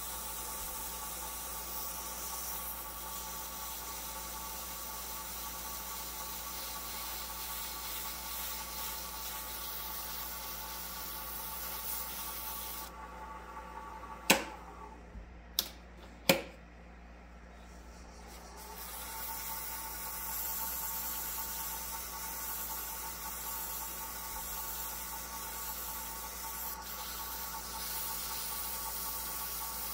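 A small wood lathe runs with a steady whine while sandpaper hisses against the spinning wooden pen blank. About halfway through, the sanding stops and the lathe winds down, followed by three sharp clicks. A few seconds later the lathe spins back up and sanding resumes.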